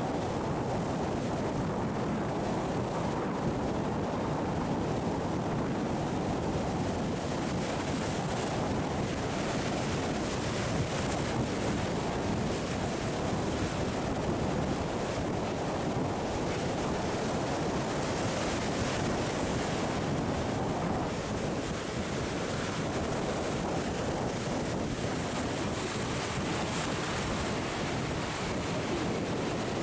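Sea surf breaking and washing over rocks, a steady rush that swells every several seconds as waves come in, with wind buffeting the microphone.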